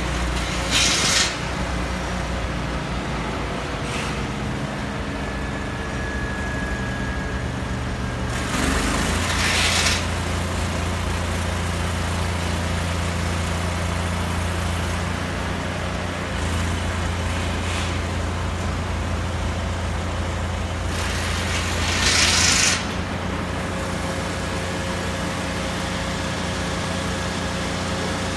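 Heavy vehicle engine running steadily at a construction site, its pitch shifting a few times, with three short bursts of hiss: about a second in, around nine seconds in and around twenty-two seconds in.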